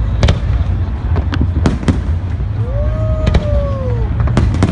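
Fireworks display: a run of sharp bangs and pops, several close together, over a continuous deep rumble of bursting shells. About halfway through, a single long pitched tone rises and then falls over about a second and a half.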